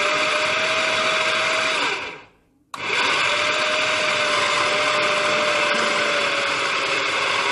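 Electric food processor running, grinding raw chicken mince with spices into a smooth paste. The motor runs with a steady whine, stops about two seconds in, and starts again after a short pause.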